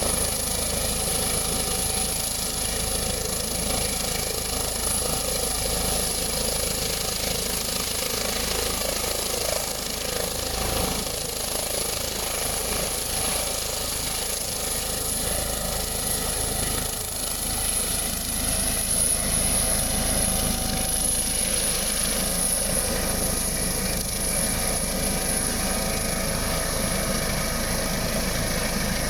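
Steady, unbroken engine noise.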